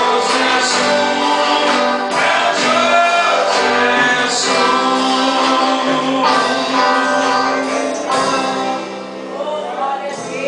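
Church band playing a gospel worship song with singing.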